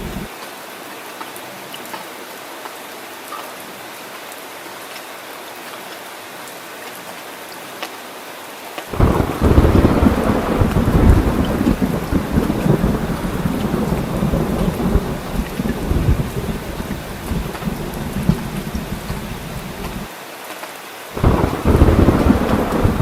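Steady rain hiss. About nine seconds in, a loud rolling thunder rumble starts suddenly and runs for about eleven seconds before cutting off. Another rumble starts near the end.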